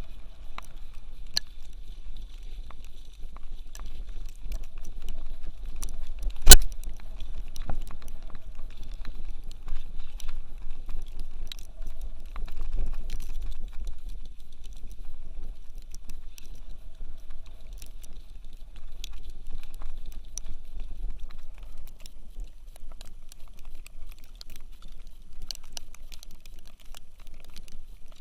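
Wind buffeting the microphone with a low, gusting rumble, with scattered light pattering and ticking over it. One sharp knock about six and a half seconds in.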